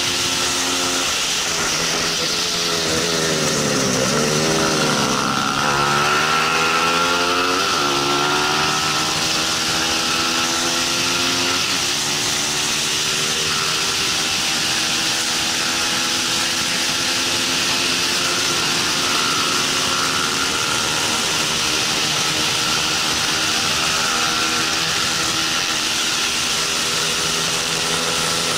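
Bajaj Pulsar 200 NS single-cylinder engine at racing speed, with wind rushing over the bike. About a second in, the revs fall as the bike slows for a corner. They climb again as it drives out, with gear changes about eight and twelve seconds in, then hold fairly steady at high revs.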